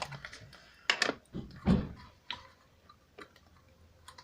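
Scattered light clicks and knocks of bowls and containers being handled while making slime, with a louder knock about a second in and a dull thud soon after.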